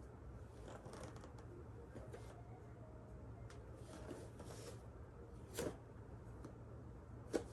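Soft rustling of clothing and a mat with light knocks from a person doing full prostration bows, over a low steady hum. Two sharper knocks stand out, one a little past halfway and a louder one near the end.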